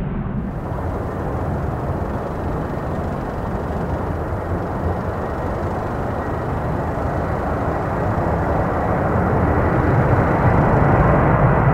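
Jet airliner engines rumbling with a faint steady whine, growing louder over the last few seconds.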